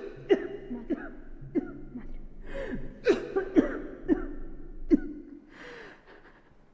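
A woman sobbing into a handkerchief: a string of sharp, catching sobs, each falling in pitch, dying away near the end.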